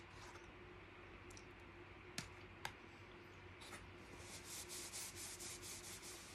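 Faint sounds at table: two sharp clicks a little over two seconds in, then a paper napkin rustling in a run of short crackly bursts as it is picked up and pressed to the mouth.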